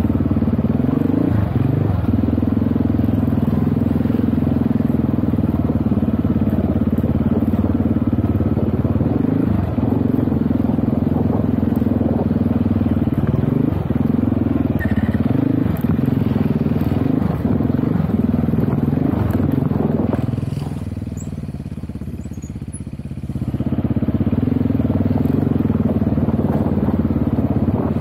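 GPX Moto FSE300R dirt bike engine running hard and steady, with scattered knocks. About twenty seconds in, the throttle comes off for roughly three seconds and the engine drops to a quieter, lower level, then pulls again.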